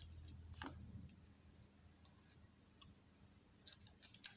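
Faint clicks and scrapes of a dismantled zinc-carbon pencil battery's torn casing being handled and set down on a tabletop: one click a little under a second in and a few more near the end.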